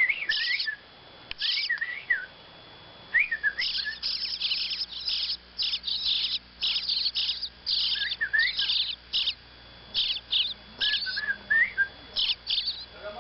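Baby birds in a nest chirping in runs of short, high calls, densest in the middle, with a few lower sliding whistle notes mixed in.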